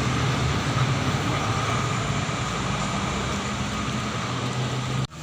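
Heavy diesel bus engine running with tyre and road noise as a bus goes by, slowly easing, then breaking off abruptly near the end.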